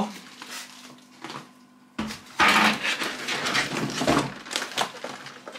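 Plastic packaging crinkling and clattering as a plastic blister tray of in-vitro plant cups is handled. The sound starts suddenly about two seconds in, after a few faint taps, and runs for about three seconds.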